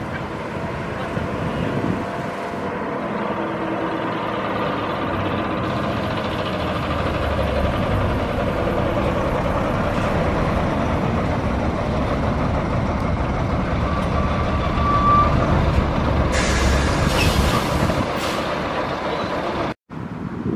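A vintage single-deck bus's diesel engine runs as the bus pulls in and passes close by, getting louder as it nears. Its air brakes give a hiss about three-quarters of the way through, and the sound cuts off abruptly near the end.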